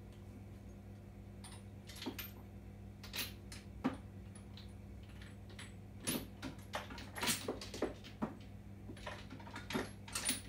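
Sockets and hand tools clinking and rattling in a toolbox while someone rummages for a socket: a string of irregular sharp metal clacks, busier in the second half, over a steady low hum.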